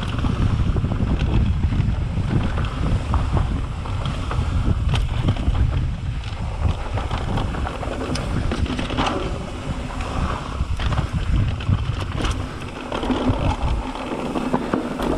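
Wind buffeting the GoPro's microphone as a mountain bike descends a rocky dirt trail at speed, with a steady rumble of tyres on dirt and scattered sharp knocks and rattles as the bike hits rocks.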